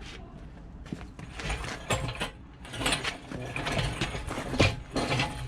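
Irregular metallic clicking and clanking from hand tools and metal parts during mechanical work on a car's engine bay.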